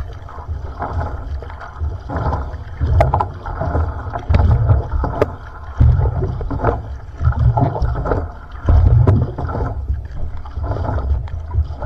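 Outrigger canoe paddling heard from a camera on the hull: the paddle blade catching and pulling through the water in repeated strokes about once every second or so, with water splashing and rushing along the hull and rumbling buffets on the microphone.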